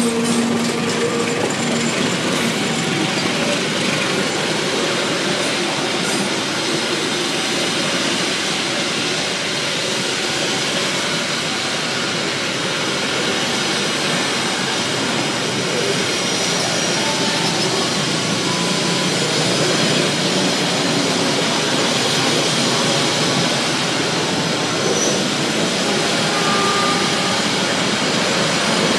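Passenger train coaches rolling past at close range: a steady, loud noise of steel wheels running on the rails.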